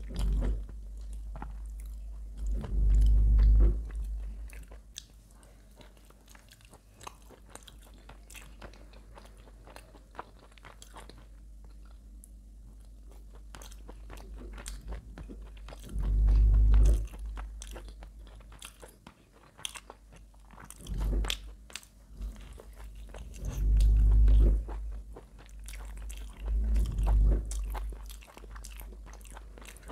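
Close-miked eating: biting into and chewing a spiced chicken drumstick, with many sharp wet mouth clicks. A few loud, deep, muffled thumps come about 3 seconds in, then around the middle and three more times near the end.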